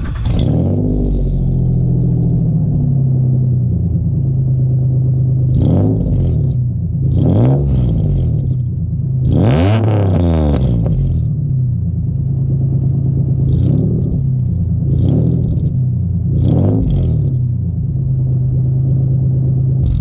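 A 2003 Mitsubishi Eclipse GT's V6 starts, settles to a steady idle through a loud exhaust, then is blipped six times, the biggest rev about halfway through. The three turbo whistles stuffed in the tailpipe add no whistle worth noting over the loud exhaust.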